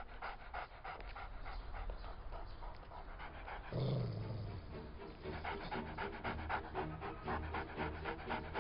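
A dog panting fast, about four or five breaths a second. Low music notes come in a little before halfway and carry on beneath the panting.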